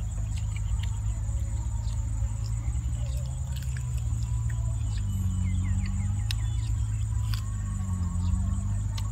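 A person chewing boiled chicken picked apart by hand, with scattered small wet mouth clicks, over a steady low rumble and a steady high-pitched whine.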